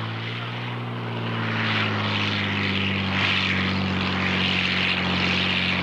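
A small single-engine propeller plane's piston engine droning steadily on the landing approach, its pitch easing slightly down at first, with a rushing hiss that builds from about a second and a half in.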